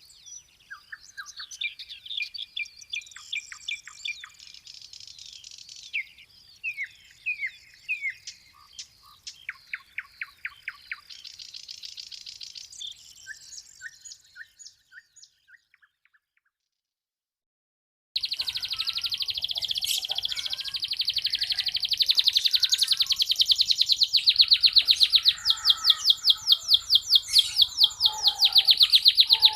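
Domestic canary (local red canary) singing: a varied song of high chirps and short trills that fades out about halfway through. After about two seconds of silence, a louder song of fast, rapidly repeated trill notes starts and runs on.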